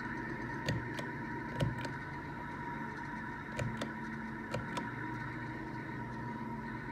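Ceiling fan motor running on a test hookup, a steady electric hum with a faint higher whine. About eight light clicks come and go through the first five seconds.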